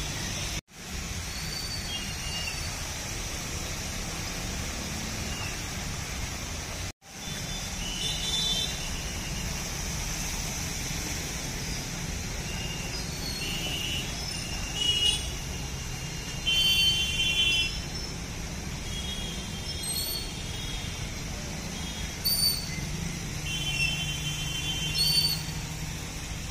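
Street traffic driving through floodwater: a steady wash of motorbike and scooter engines and water noise. Short, high vehicle-horn toots sound several times in the second half. The sound cuts out briefly twice near the start.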